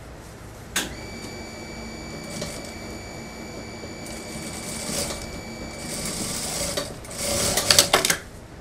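Industrial sewing machine stitching a jacket seam. It runs with a steady whine for about five seconds, then gives a louder, noisier stretch with quick ticks near the end.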